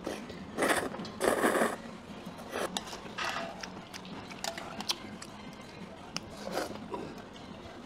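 Cold buckwheat noodles (makguksu) slurped in two quick bursts in the first two seconds. These are followed by scattered clicks and scrapes of chopsticks and spoons on stainless steel bowls.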